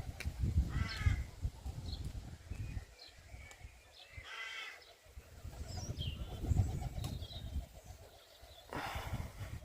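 Wind gusting on the microphone in low rumbles, with a bird giving short harsh calls about a second in, again around four and a half seconds and near the end, and small birds chirping faintly.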